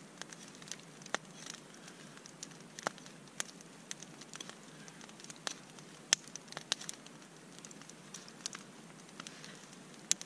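Knife whittling a fork from a frozen, brittle cedar knot: scattered, irregular sharp little clicks and snaps as the blade cuts between the tines.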